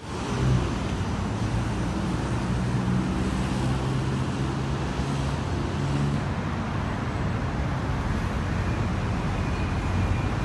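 Steady rumble and hiss, like road traffic, with a low hum that shifts in pitch every second or so.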